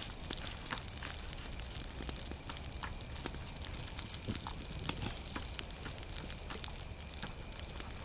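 Sausage frying in a pan on a camping gas burner: a steady sizzle with many small scattered crackles and pops.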